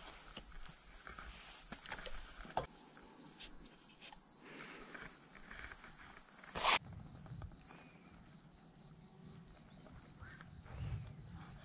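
Insects chirping steadily at a high pitch, with a few light knocks. A sharp click comes about seven seconds in; after it the chirping is fainter, with a faint, evenly pulsing insect call.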